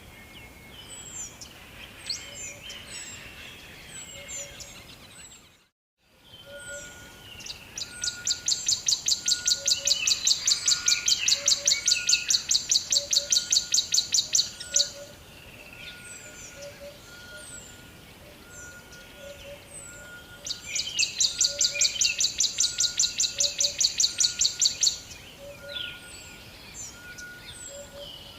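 Rainforest ambience: many birds chirping with short falling calls, and a short high note repeated about once a second. Twice a loud, rapid pulsing call sounds, about six pulses a second, lasting about six seconds the first time and four the second. The sound cuts out completely for a moment about six seconds in.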